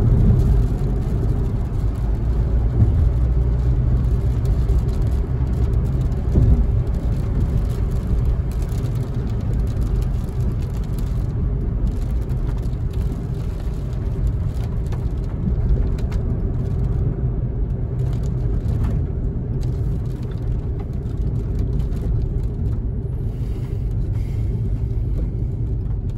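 Steady engine and road rumble of a moving car, heard from inside the cabin.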